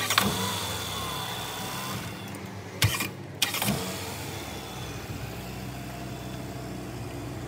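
Car engine running steadily, with a couple of short knocks about three seconds in.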